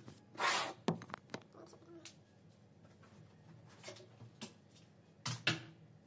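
Handling noise: a loud rustling scrape about half a second in, then scattered knocks and clicks of things being set down and moved.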